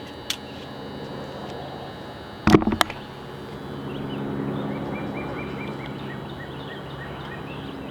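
Outdoor ambience: a steady low hum, a sharp knock about two and a half seconds in, and a bird giving a quick series of repeated chirping notes around the middle.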